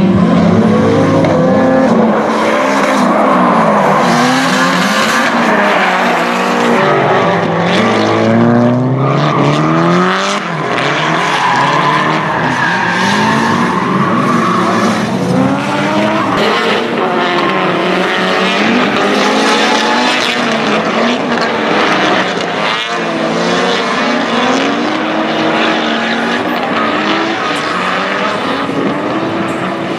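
Several Nissan S13 and S14 drift cars sliding in tandem, their engines revving up and down over one another with constant tyre squeal and skidding.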